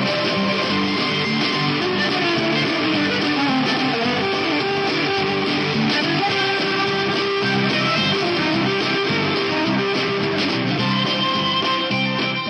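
Guitar music playing continuously.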